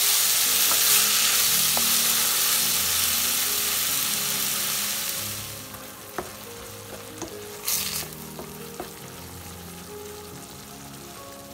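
Chopped tomatoes sizzling in hot oil in a stainless steel pan while a wooden spoon stirs them. The sizzle drops off about halfway through, leaving a quieter stretch with a few taps of the spoon against the pan.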